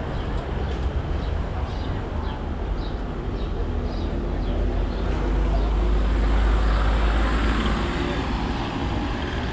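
Low engine rumble of a passing motor vehicle in street traffic, growing louder past the halfway point and easing off near the end. Light ticks repeat about twice a second in the first half.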